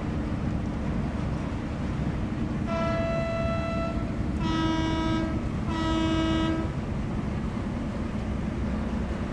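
A horn sounds three blasts of about a second each, in quick succession, over a steady low rumble.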